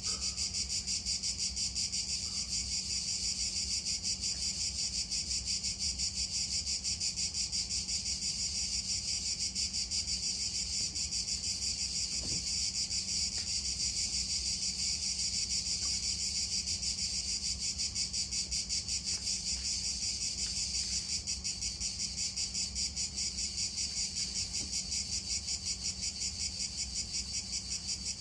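Steady chorus of insects: a continuous, high, rapidly pulsing buzz.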